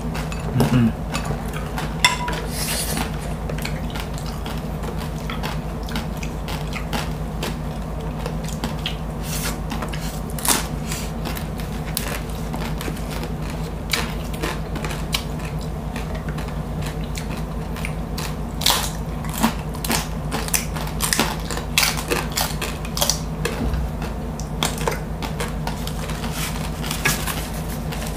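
Close-miked eating of crispy roast suckling pig (lechon): irregular crunches, smacks and clicks of chewing, coming more often in the second half, over a steady low hum.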